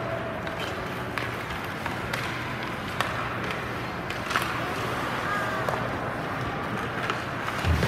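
Ice hockey play in a rink: skate blades scraping the ice and a handful of sharp clacks of sticks and puck, over a steady hum in the arena. A brief call or shout about halfway through.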